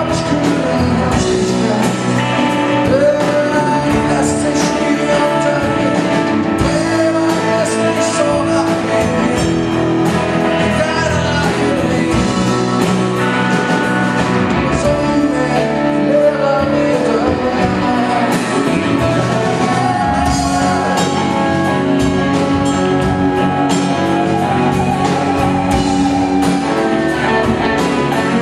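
Live rock band playing a song: a man sings lead over acoustic and electric guitars, drums and keyboards.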